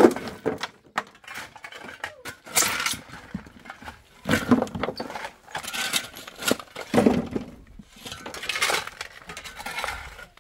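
Irregular clattering and clinking of hard objects being handled, in scattered bursts, with a sharp knock right at the start.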